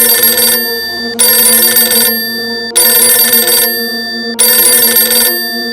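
Outro music: a held low drone under a bright, bell-like ringing shimmer that comes back about every one and a half seconds, fading away near the end.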